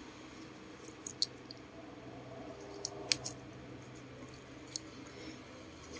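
Light metallic clicks of a steel watch bracelet being handled and set down, a few scattered clicks in the first half, over a faint low hum.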